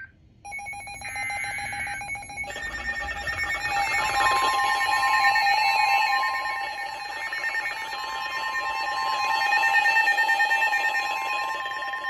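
Weather alert radio sounding an emergency alert. It starts with the buzzy screech of coded data bursts, then a rapidly pulsing alarm beep. From about four seconds in a steady high alert tone joins, the tone that signals a warning.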